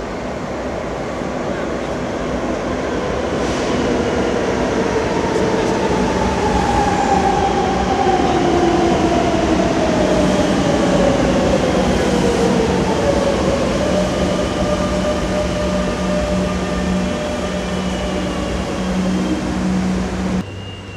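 Madrid Metro electric train running through an underground station. The rumble builds to a peak near the middle, with a motor whine falling in pitch, then a steady low hum before the sound cuts off sharply near the end.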